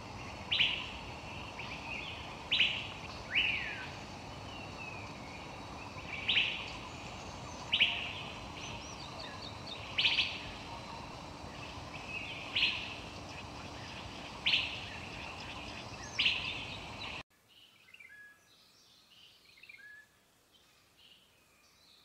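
A bird's sharp call that slides quickly downward, repeated about every one and a half to two seconds over a steady hiss. The audio cuts off suddenly about 17 seconds in, leaving only faint, scattered chirps.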